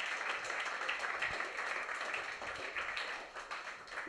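Audience applause, dense clapping that slowly dies down.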